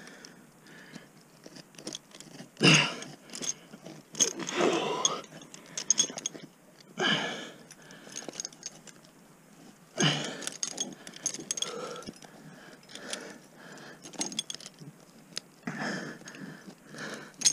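Ice climbing tools and crampons striking and crunching into hard water ice, a handful of separate blows a few seconds apart, with metal climbing gear jangling between them.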